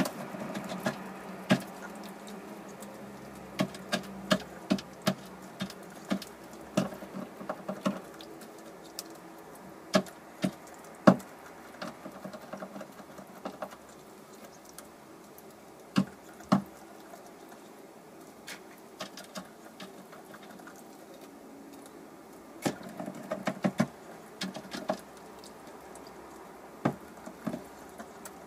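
Irregular sharp clicks and light crackles of straw nesting material in a wooden nest box as a sitting hen shifts on the nest, some coming in quick clusters.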